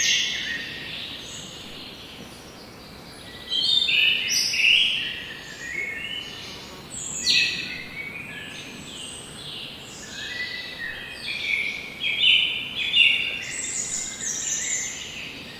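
Several forest birds singing and chirping: short chirps and trills overlapping one another, louder bursts about four, seven and thirteen seconds in, over a faint steady background hiss.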